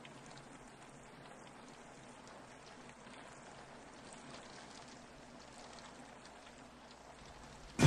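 Faint steady background hiss with small scattered ticks, the quiet ambience of a still room. A sudden loud burst starts right at the very end.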